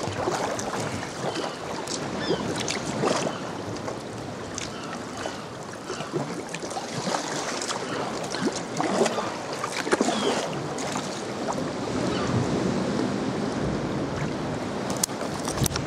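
Sea water sloshing and lapping around a paddled sea kayak, with irregular splashes from paddle strokes and swell washing against the rocks alongside.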